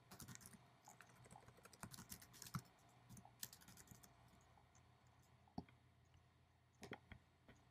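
Faint computer keyboard typing: a quick run of keystrokes over the first three to four seconds, then a few isolated clicks near the end.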